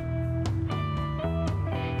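Background music with held notes over a steady beat.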